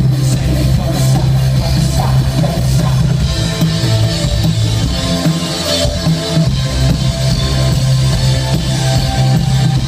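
Rock band playing live, an instrumental stretch without singing: electric guitars, keyboard, bass and drum kit, loud and steady, recorded from the audience.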